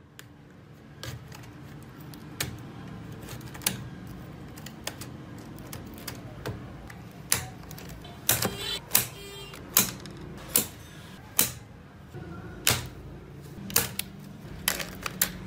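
Rusty steel wire being pried up and snipped off a wooden hammer handle with cutting pliers: a series of sharp metallic clicks and snaps, spaced about a second apart at first, then coming faster and louder in the second half.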